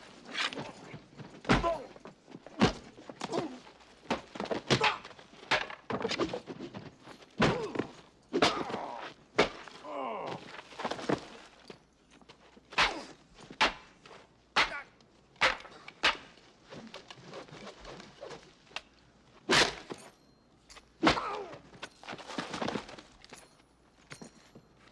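Fight blows from hickory axe handles: a long, irregular run of sharp wooden hits and thwacks, about twenty in all, with men grunting and groaning between them.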